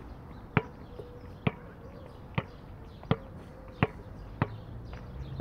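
A basketball being bounced: six sharp bounces, a little under a second apart, coming slightly faster toward the end.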